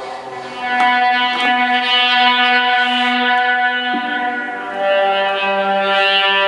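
A song playing through a Cygnett Soundwave Bluetooth stereo speaker during a sound test: instrumental music of long held notes that change pitch about a second in and again around four to five seconds in.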